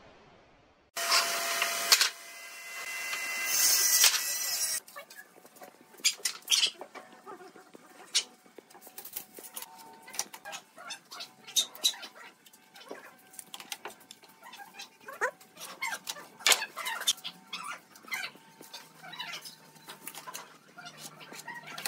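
An intro sound effect: a loud burst of noise that swells and cuts off suddenly about five seconds in. Then scattered light knocks and taps of rough-sawn boards and a steel ruler being handled on a wooden workbench.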